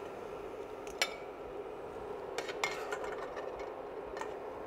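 A metal spoon clinking and scraping against a steel pan and a plate as solids are lifted out of simmering broth: about five sharp clinks over a steady background hum.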